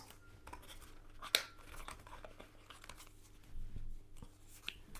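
Thin tarot cards being handled: faint card and paper rustling with scattered light clicks, one sharper click a little over a second in.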